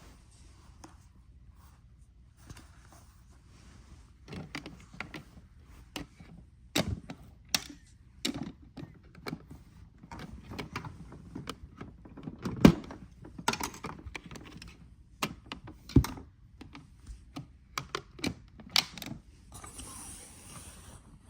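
Irregular clicks, knocks and thuds of things being handled, starting about four seconds in, with two loud thuds in the second half.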